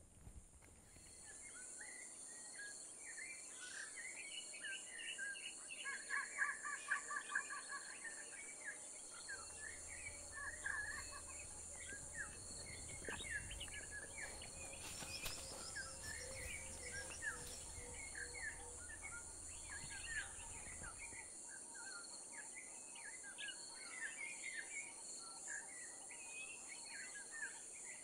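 Wild natural ambience: many birds chirping and calling over a steady high-pitched insect drone. The bird calls are busiest in the first half and thin out later.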